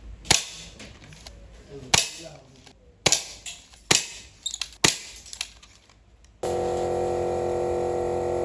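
M90 toy airsoft shotgun firing five sharp shots over about five seconds, with lighter clicks after some of them. A steady tonal hum starts about six seconds in.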